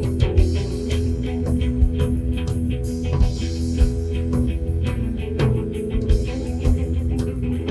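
Rock music led by guitar, with a steady beat.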